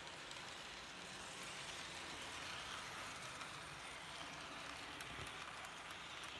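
Märklin H0 model train, a BR E18 electric locomotive hauling express coaches, running past on the track: a steady rolling hiss of wheels on rails that grows a little louder as the train passes close.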